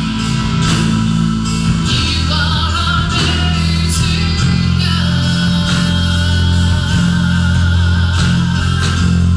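Live worship band playing a slow praise song: guitars and keyboard over sustained bass notes, with a voice singing from about two seconds in.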